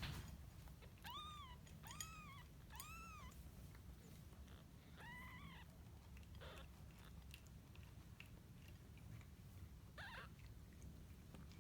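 Five-day-old kittens mewing faintly: three thin, high, arching mews in quick succession about a second in, then single mews around five seconds and near ten seconds.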